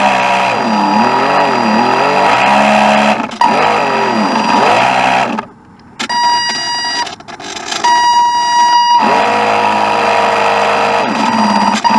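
Radio-controlled boat's motor running, its whine rising and falling in pitch as the throttle changes. A little past the middle it drops out briefly; then a steady high tone sounds in two stretches of about a second each before the motor picks up again.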